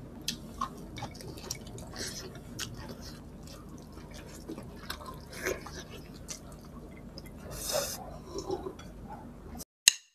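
Close-up eating sounds of two people eating with their hands: wet chewing, lip smacks and small sticky clicks, over a low steady hum. Near the end the sound cuts off suddenly, followed by a single sharp hit.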